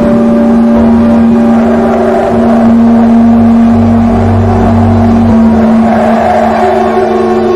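Loud, sustained horror-film score drone that holds one deep note with a low rumble underneath.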